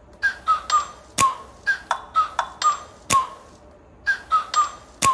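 Background hip hop music: a beat of short whistle-like notes in a repeating figure, with a sharp clap about every two seconds.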